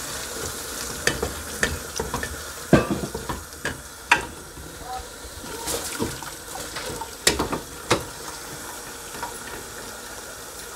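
Boiled red kidney beans being stirred into sizzling masala in a frying pan with a spatula: a steady frying hiss, with the spatula scraping and knocking against the pan several times, mostly in the first eight seconds.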